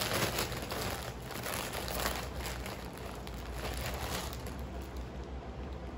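Plastic packaging crinkling and rustling as items are handled, busiest in the first couple of seconds and thinning out later.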